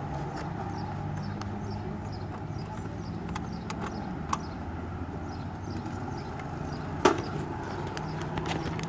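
A motorcycle engine idling steadily, with a few light clicks and a single sharp knock about seven seconds in.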